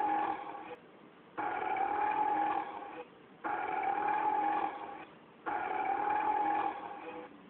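Long, drawn-out burps, one after another about every two seconds, each held at much the same pitch with a short pause between.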